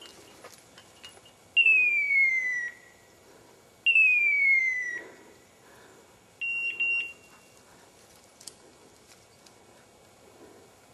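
Electronic beeper collar sounding its point-mode signal: two loud, clean, descending whistle-like calls about a second long each, then a shorter steady beep broken into a few pulses about six seconds in. The signal means the dog has stopped on point.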